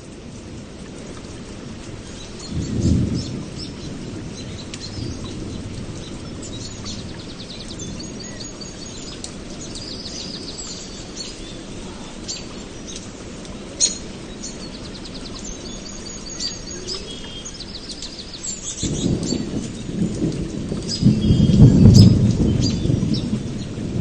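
Steady rain with rolling thunder: a short rumble about three seconds in, then a longer, louder one building from about two-thirds of the way through. Birds chirp over the rain in between.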